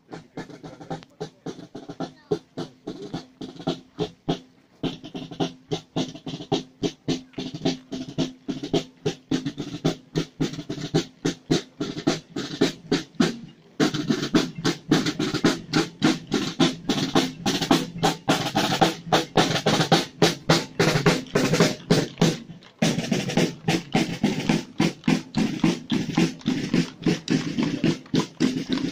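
Marching snare drums beating a steady march rhythm, about two to three strokes a second, louder from about halfway. The beat drops out briefly three times.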